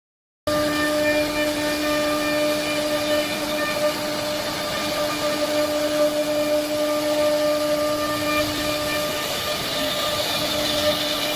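CNC router spindle running with a steady high whine and an even hiss of cutting noise beneath it, starting abruptly about half a second in.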